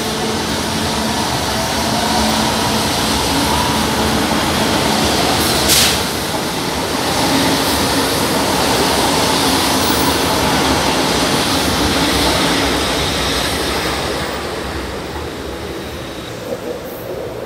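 São Paulo Metro train running along the platform and out of the station: steady wheel and running noise with a steady hum in the first few seconds and one sharp click about six seconds in, fading near the end as the train leaves.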